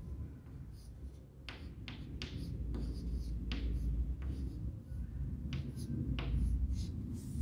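Chalk writing on a chalkboard: a string of short scratchy strokes and taps as letters are written, over a steady low background hum.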